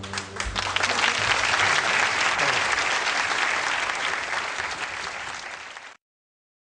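Audience applauding, with the last chord of the music dying away in the first moment; the applause cuts off abruptly about six seconds in.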